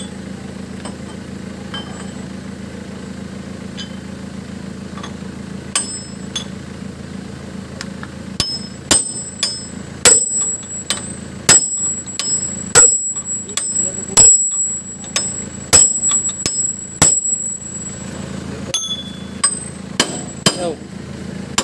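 Sharp, ringing metal-on-metal strikes on the front spindle bearing of a FAW six-wheeler truck, knocked with a hand-held steel tool to drive the bearing off. Light taps at first, then from about eight seconds in a run of hard blows, irregular, about one to two a second.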